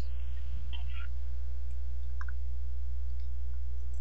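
Steady low electrical hum on the audio line, with a few faint clicks.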